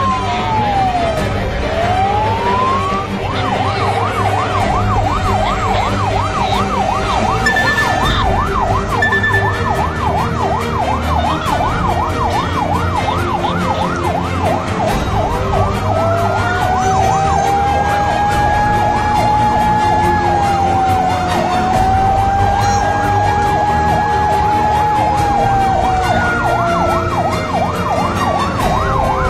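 Fire engine siren heard from inside the cab. It switches between a slow rising-and-falling wail and a fast warbling yelp: wail at first, yelp from about three seconds in, a long wail again around the middle, then the yelp returns underneath as the wail falls near the end.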